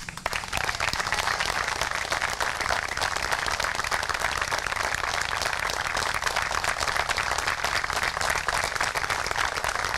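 A group of people applauding, a dense patter of hand claps that starts abruptly.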